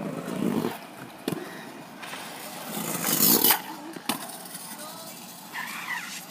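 Stunt scooter wheels rolling over paving, swelling into a loud rush about three seconds in, with sharp clacks of the scooter hitting the ground about a second in and about four seconds in.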